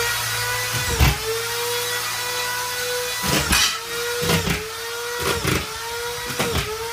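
Machine running with a steady high whine whose pitch sags briefly about six times, each time with a clunk, as if loaded for a moment.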